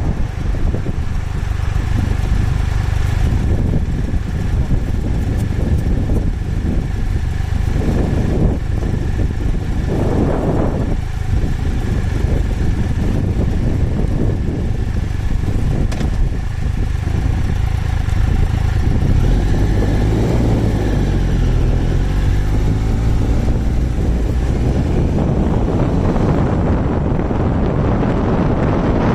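Heavy wind buffeting on the microphone over a Triumph Tiger Explorer 1200's three-cylinder engine while riding. The engine pitch rises and falls a few times past the middle.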